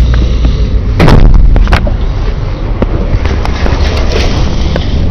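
Wind buffeting the camera microphone in heavy rain, with a loud knock of the camera being handled about a second in and a smaller one just after. Scattered small ticks follow, rain striking the camera.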